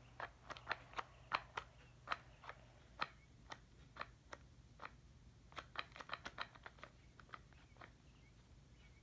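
Faint, irregular small clicks and taps, a couple of dozen in all, bunched more closely together about six seconds in.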